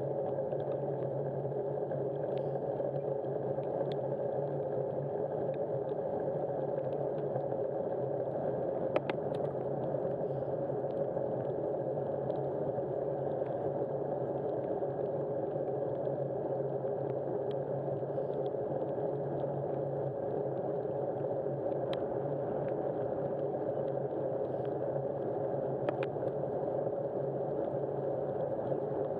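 Steady vehicle drone with a constant low hum that holds the same pitch throughout, and a couple of faint clicks.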